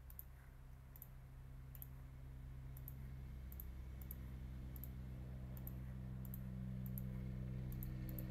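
Computer mouse clicking about a dozen times, each click a quick press-and-release pair, as calculator-emulator keys are entered one by one. Underneath, the low hum of a vehicle engine grows steadily louder.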